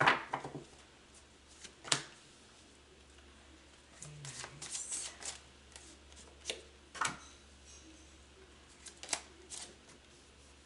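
Tarot cards being handled: a series of sharp card flicks and slaps as cards are pulled from the deck and laid down, the loudest right at the start. About four seconds in there is a stretch of rustling as the deck is shuffled.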